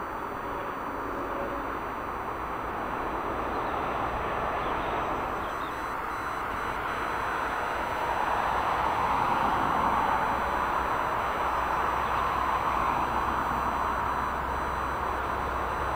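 Jet airliner coming in to land: a broad rushing engine noise that swells gradually, is loudest about ten seconds in, and stays loud.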